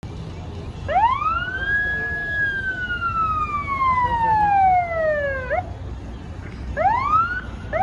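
A siren sweeping up in pitch in about a second, holding briefly, then sliding slowly down over several seconds. Near the end it sweeps up quickly twice more.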